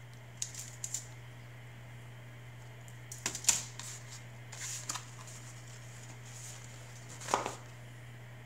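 Scattered handling sounds of food and packaging on a foil-lined tray: a few short taps, clicks and crinkles over a steady low hum. The loudest come about three and a half seconds in and again about seven and a half seconds in.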